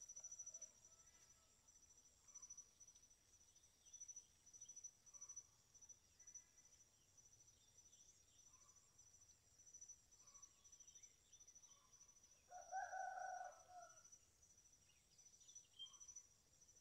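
Faint rural ambience: a steady, pulsing insect trill throughout. About thirteen seconds in, a rooster crows once, the loudest sound, lasting about a second and a half.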